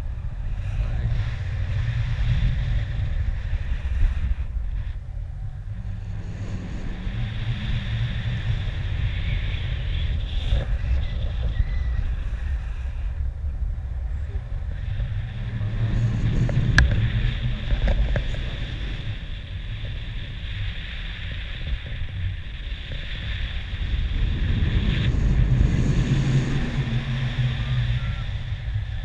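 Wind rushing over the microphone in paragliding flight: a steady low rumble that swells and fades, with one short click about seventeen seconds in.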